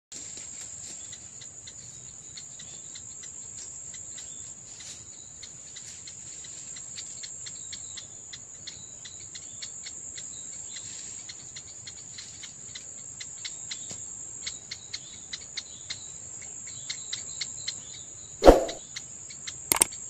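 Steady high-pitched trilling of insects in vegetation, dotted with many short ticks. A loud short thump comes a little before the end.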